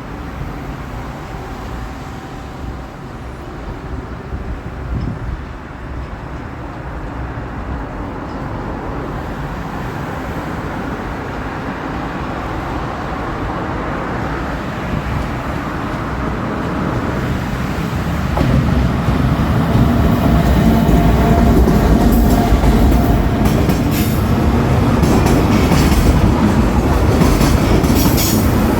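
JR Freight EF210 DC electric locomotive pulling a freight train out of the station, its running noise building steadily as it approaches. Louder from about two-thirds of the way in, with wheels clacking over the rail joints near the end.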